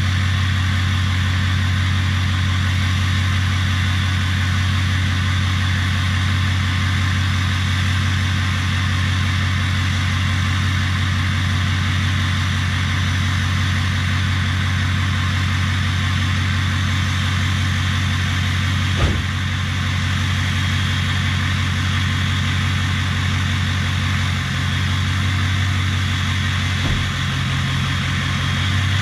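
Ford 6.0 Power Stroke turbo-diesel V8 idling steadily with a newly fitted cold air intake and oiled filter. A single sharp click or knock comes about two-thirds of the way through.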